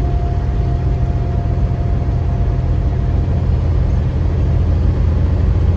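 Diesel truck engine pulling steadily under heavy load in ninth gear up a steep grade, with a deep, even rumble. A faint steady whine sits over it and fades out about halfway through.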